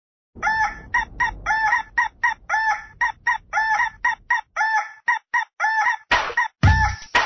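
Channel intro jingle built from a rooster's crow sampled and chopped into a rhythmic loop: one longer call followed by two short stabs, repeating about once a second. A bass-heavy beat joins about six seconds in.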